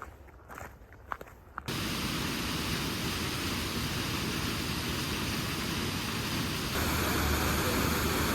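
A few footsteps, then an abrupt cut about two seconds in to a steady, loud rushing noise outdoors, which rises a little near the end.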